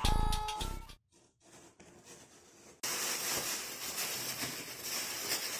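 The tail of a music track with drum hits ends about a second in. After a near-silent gap, a steady, even hiss of room background starts abruptly about three seconds in.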